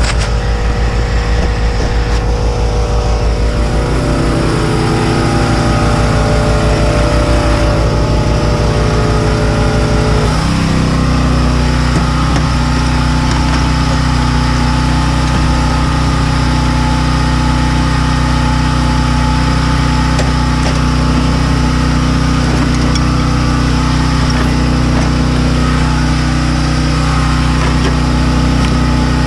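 An engine or motor running steadily, with a change in its pitch about ten seconds in.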